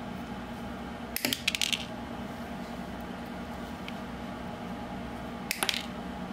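Diagonal cutting pliers snipping thin steel wire: a cluster of sharp metallic clicks about a second in and another near the end, over a steady low hum.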